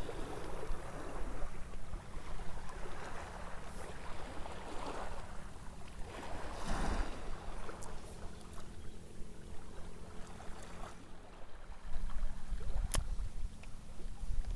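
Wind rumbling on the microphone over lapping water, while a small spinning reel is cranked to retrieve a cast micro jig on an ultralight rod; a single sharp click near the end.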